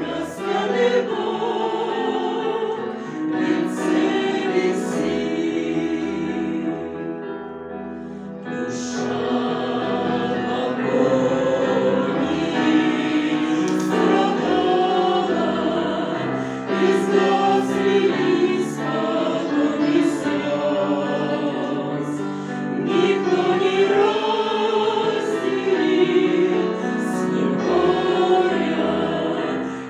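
A choir singing a song in Russian, the voices easing off briefly about eight seconds in before swelling again.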